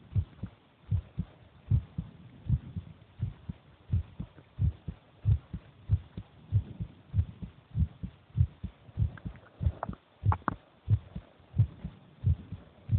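A human heartbeat recorded close-up: steady paired lub-dub thumps at about 85 beats a minute. A few sharper clicks come about ten seconds in.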